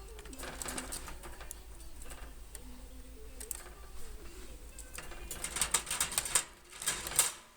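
Rapid clicking and rattling against a wire birdcage as the pet bird works at it on its way out, growing louder and busier about five seconds in.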